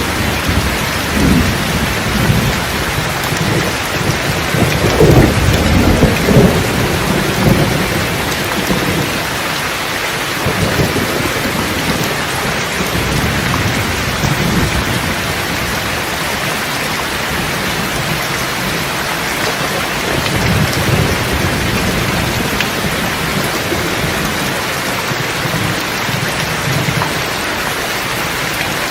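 Steady rain with rolling thunder. A louder rumble comes about five to six seconds in, and fainter rolls follow later over the continuous downpour.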